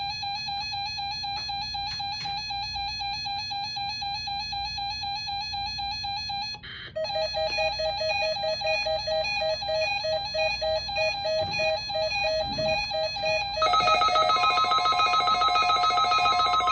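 Electronic alert signal of a NOAA Weather Radio test: a rapidly pulsing, warbling set of electronic tones that changes pattern after a short break about seven seconds in, and again near fourteen seconds, when it gets louder and a steady high tone joins it.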